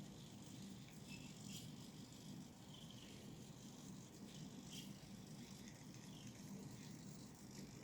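Faint, continuous light rattling and clicking from the moving parts of a praying-mantis automaton, over a low steady hum.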